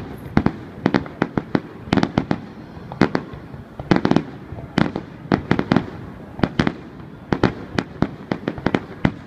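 Aerial fireworks shells bursting in quick, irregular succession, several sharp bangs a second in clusters.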